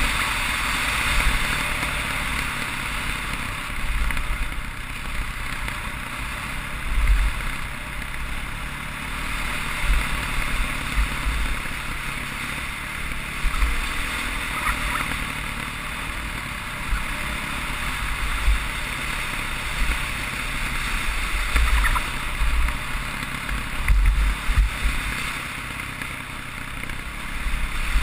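Dirt bike engine running steadily while riding a gravel road, heard muffled through a helmet-mounted GoPro's housing, with wind buffeting the microphone in repeated low gusts.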